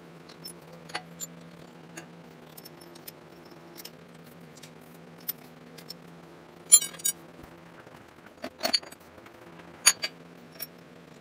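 Scattered metallic clinks and knocks of clamps, tools and the steel angle plate being handled on the boring mill's cast-iron table, the sharpest a little past halfway and near the end. A steady low hum runs underneath.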